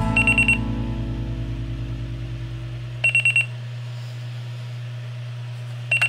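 Alarm clock beeping: a burst of four quick high beeps, repeated about three seconds later, with the next burst starting at the very end.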